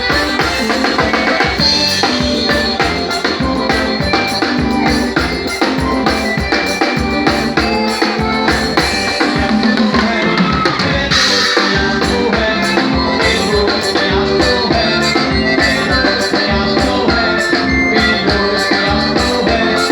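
A band playing live, with a drum kit keeping a steady, even beat under the other instruments; no singing yet.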